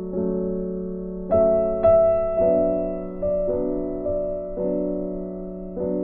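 Soft background piano music: gentle chords struck every second or so and left to ring, with a brighter high melody note a little over a second in.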